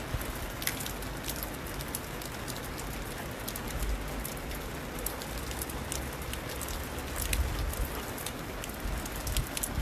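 Heavy rain falling, a steady hiss with many individual drops ticking close to the microphone, over a low rumble.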